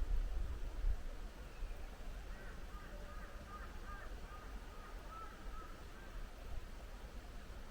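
Faint, distant bird calls, a run of short thin wavering notes, over a soft steady outdoor hiss, with wind rumbling on the microphone in the first second.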